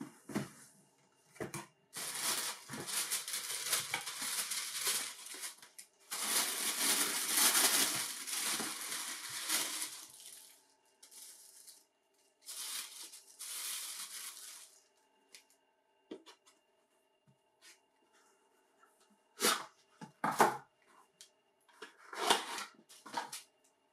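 Tissue paper crinkling and rustling in long crackling stretches as a sneaker is unwrapped from a cardboard shoebox. Later, a few short knocks and handling sounds as the shoe and box are moved about.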